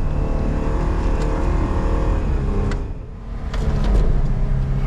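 Vehicle engine running under load while driving through deep snow. Its pitch sinks slightly, it eases off about three seconds in, then picks up again.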